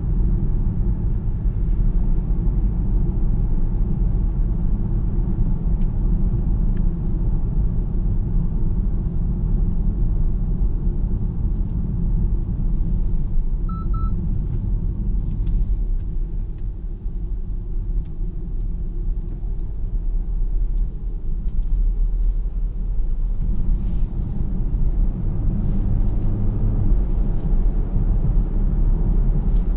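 In-cabin road noise of a BMW 740Le iPerformance at highway speed: a steady low tyre and road rumble. A brief electronic chime sounds about halfway through.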